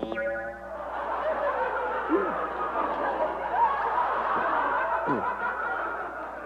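Many high-pitched voices giggling and chattering together at once, starting suddenly.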